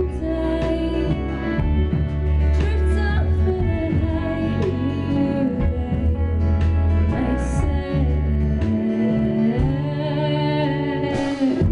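Live band playing a song: a woman singing over acoustic guitar, cello, electric guitar and drums, with a long held vocal note near the end.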